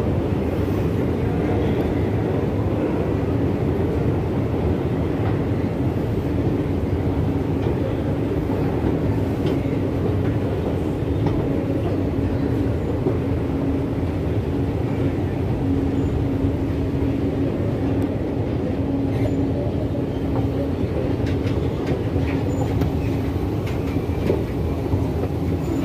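Long metro escalator running: a steady low rumble with a constant hum throughout, and a few faint clicks near the end as the top is reached.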